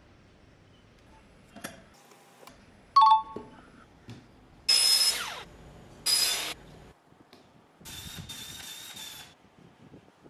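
A sharp metallic clink, then two short, loud bursts of a miter saw cutting PVC pipe, each with a motor whine that falls away. Near the end comes a quieter, steadier machine whirr lasting about a second.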